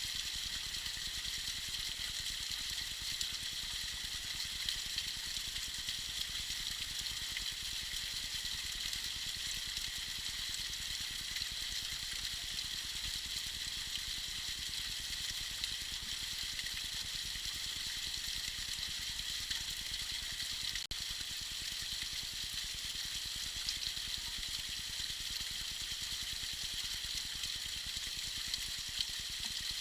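Tiny waterfall splashing steadily: an even, high hiss of falling water that holds unchanged throughout.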